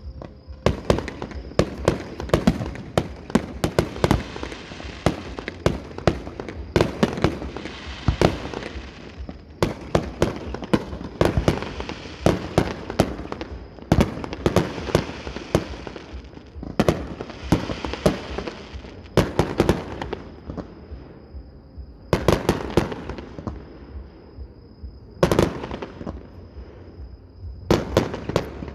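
Fireworks display: aerial shells bursting in a continuous run of bangs, several at a time in quick clusters, with stretches of crackling hiss from crackle effects.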